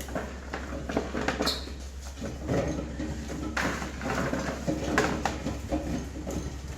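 Scattered knocks and clatter of things being handled, over a steady low hum.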